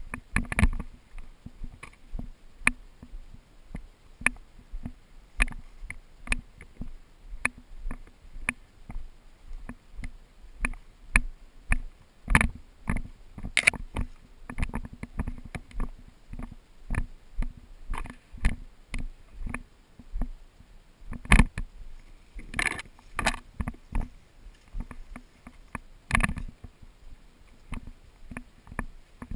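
Footsteps at a walking pace, about one to two a second, with rustle and a few louder knocks. The knocks are likely gear or the camera being bumped.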